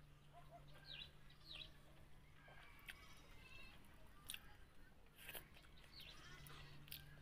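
Near silence, with faint clicks of fingers picking food crumbs off a wooden board and soft chewing, and a few faint short animal calls in the background.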